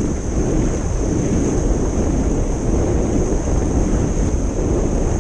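Steady wind noise buffeting the microphone of a small camera mounted on a speedboat running fast, mixed with the rush of water and spray along the hull.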